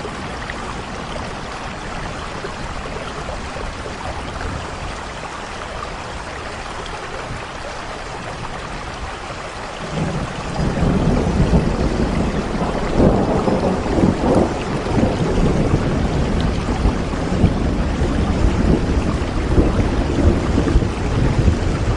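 Steady rain falling, with a low rumble of thunder rising in about halfway through and rolling on to the end.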